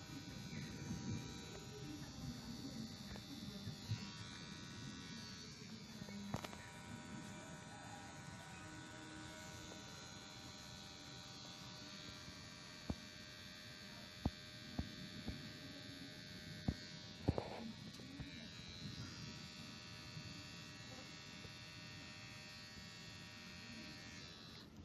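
Kemei KM-2850 electric hair clipper running with a steady buzzing hum while cutting hair, with a few sharp clicks in the middle.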